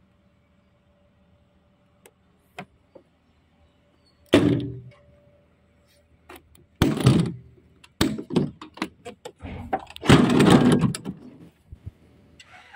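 Quiet at first, then a series of knocks, thuds and rattles, loudest about four, seven and ten seconds in.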